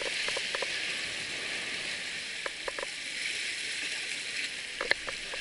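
Steady hiss of sea water washing against shore rocks, with a few short clicks.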